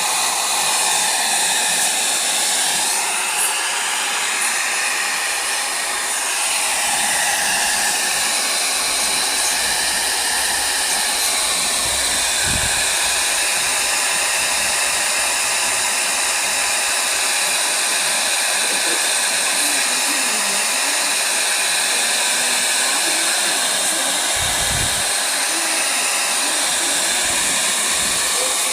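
Hair dryer blowing steadily, used to melt the ice built up in a refrigerator freezer; the pitch of the airflow wavers in the first few seconds.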